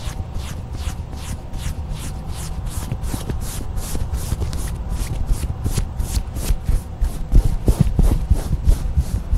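Hands rubbing and brushing over clothing right at a clip-on lapel microphone, a rhythmic swishing of about three strokes a second, with a few heavier bumps against the mic near the end.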